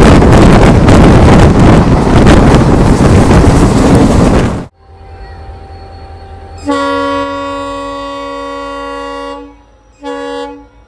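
Loud rushing wind noise on the microphone that stops abruptly before halfway, then an EMD WDP4D diesel locomotive's horn over a low rumble: one long blast of about three seconds, then a short blast near the end.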